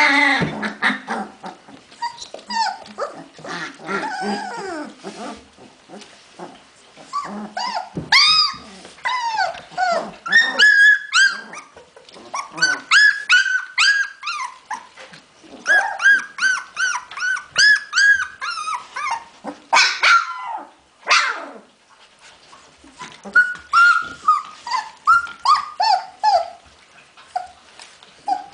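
Hungarian vizsla puppies whining and squealing: many short, high-pitched cries that rise and fall, coming in quick overlapping runs, with a brief quieter lull about two-thirds of the way through.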